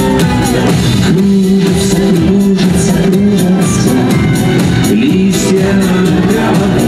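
Live pop-rock band playing a song, with a drum kit keeping a steady beat under guitar.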